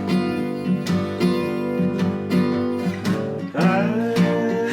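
Acoustic guitar strumming the chords of a folk-country song in a steady rhythm between sung lines. A short sliding note rises about three and a half seconds in.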